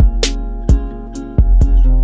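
Background music with a steady beat of about two drum hits a second over deep bass and held chords.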